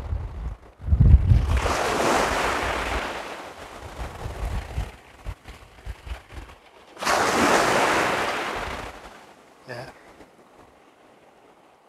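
Small sea waves breaking and washing up a shingle shore, two swells of surf each rising and fading over a couple of seconds, about five seconds apart. Wind buffets the microphone with a low rumble in the first second or so.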